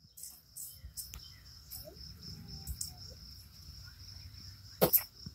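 Insects chirring in a steady high-pitched trill, over a low rumble, with a couple of sharp clicks about five seconds in.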